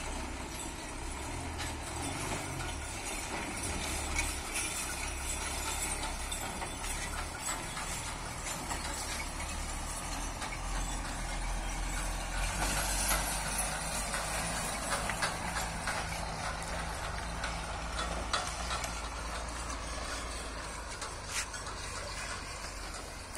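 Bedford truck engine running as the truck crawls over a rough dirt track. Its low note shifts in pitch a couple of seconds in and grows louder about halfway through.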